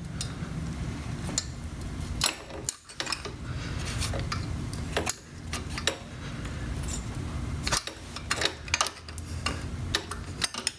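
Ratchet clicking in short, irregular runs, with metal clinks of the socket on the bolt, as a cylinder head bolt is loosened on a Harley-Davidson Shovelhead engine, over a steady low hum.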